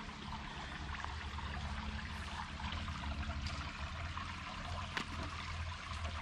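Small creek trickling, a steady rush of running water.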